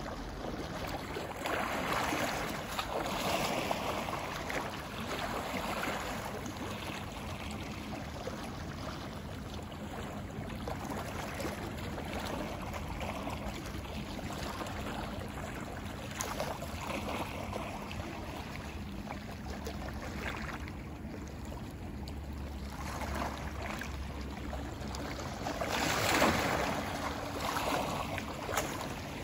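Gentle sea waves lapping and washing over a stone slipway, a soft rush that swells and eases every few seconds, with the biggest surge near the end.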